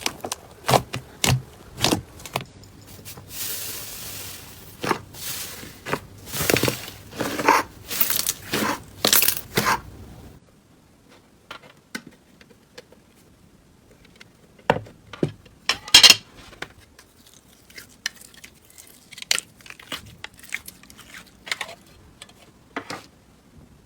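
Hand-played slime being squeezed, stretched and pressed, making quick sticky clicks, pops and crackles. About ten seconds in it turns much quieter, with only scattered pops.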